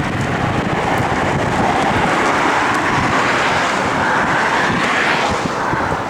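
Road and wind noise of a moving vehicle, a steady rushing that swells a little before easing near the end.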